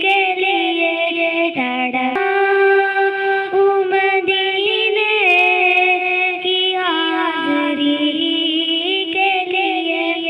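A young girl singing a naat, a devotional Islamic poem, with long held notes that glide and ornament between pitches. The voice is unaccompanied.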